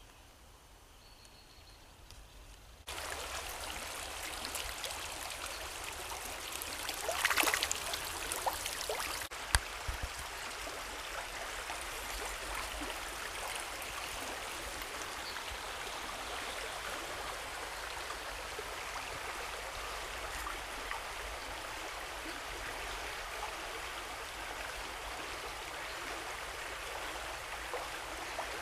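Shallow stream running over a stony riffle, a steady rush of water that comes in abruptly about three seconds in. A single sharp click stands out about a third of the way through.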